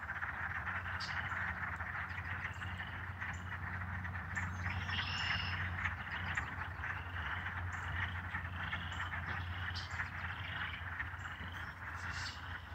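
Chorus of many frogs calling together in early spring: a dense, steady pulsing din with many short rising peeps repeating over it.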